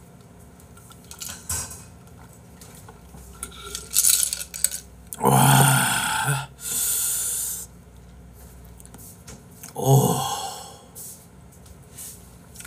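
Dishes and cutlery clinking lightly on a table. About five seconds in, a man gives a loud voiced exclamation that trails into a long hiss, and a shorter vocal sound follows near ten seconds.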